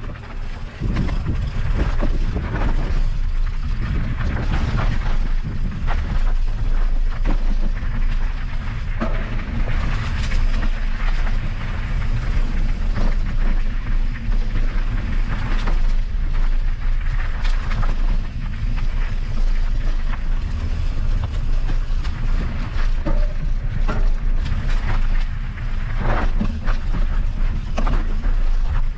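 Mountain bike being ridden over a rough dirt trail: a constant rattle and clatter of the bike and tyres over bumps, with many sharp knocks, over a steady low rumble.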